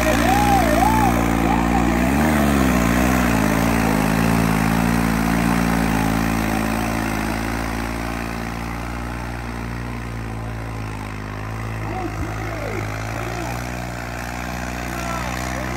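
Diesel tractor engine running steadily, its pitch dipping briefly and recovering about two seconds in. Faint distant voices are heard near the start and near the end.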